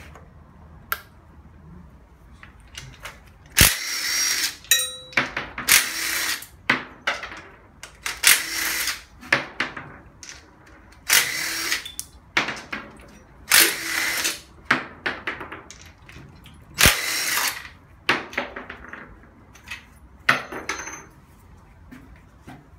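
A socket tool undoing bolts in short bursts: about eight runs of a second or so, two to three seconds apart, a couple of them starting with a sharp knock of metal.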